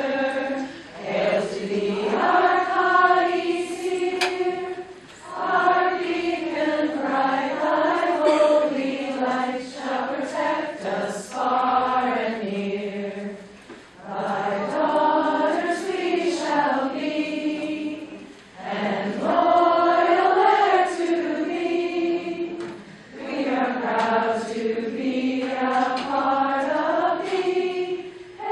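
A group of women's voices singing a slow song together, in long held phrases with brief pauses between lines.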